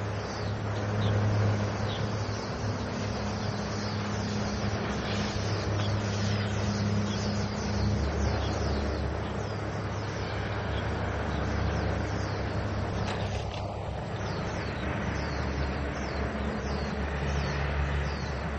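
Train running at a railway station: a steady low hum whose pitch drops about eight seconds in, with a run of short, high falling chirps throughout.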